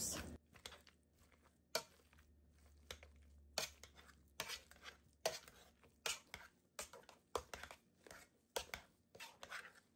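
Wire potato masher working boiled potatoes in a metal pot: faint, irregular soft knocks, about one a second, as the masher is pushed down through the potatoes.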